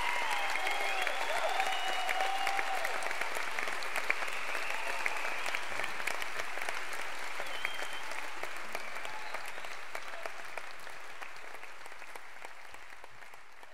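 Concert audience applauding after a song, with some cheering and whistling in the first couple of seconds. The applause fades out steadily over the last few seconds.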